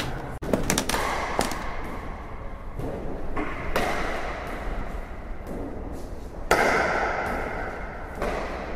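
Basque pelota played in a trinquet: the ball cracks off wooden paddles and the court walls in a series of sharp knocks a second or more apart, each ringing on in the enclosed court's echo.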